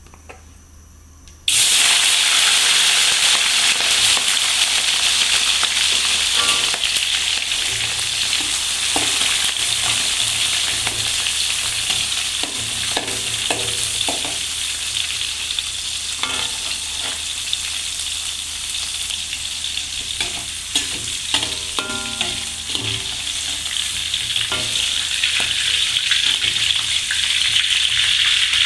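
Food goes into hot oil in a frying pan and starts sizzling suddenly and loudly about a second and a half in. The sizzle keeps going while it is stirred, with scattered clinks and scrapes of a utensil against the pan.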